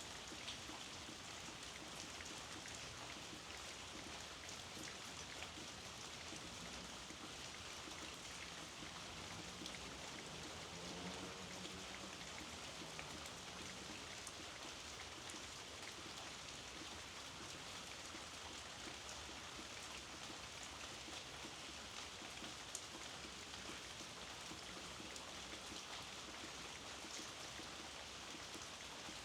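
Steady soft rain: an even hiss with scattered drop ticks.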